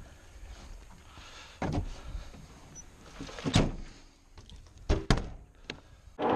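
A handful of separate knocks and thuds, two of them close together about five seconds in.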